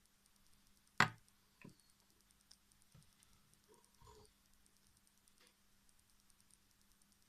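Plastic LED corn bulbs being handled and set down on a hard surface: one sharp knock about a second in, a lighter one just after, then a few faint clicks of handling over a faint steady hum.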